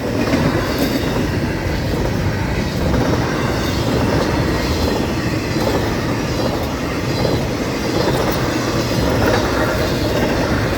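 Florida East Coast Railway intermodal freight train's cars rolling past at speed: a steady rumble and rattle of steel wheels on the rails.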